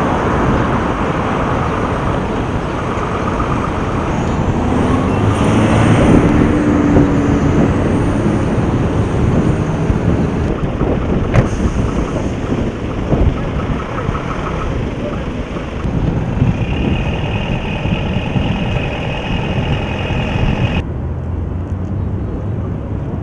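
Road traffic at a roadside checkpoint: cars and trucks running and passing, with a steady noisy outdoor background that changes abruptly twice.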